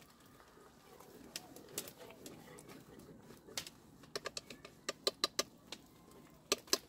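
Wooden chopsticks clicking against a metal cooking pot as rice is stirred over a wood fire: a few scattered taps, then quick clusters of sharp clicks in the second half, loudest near the end.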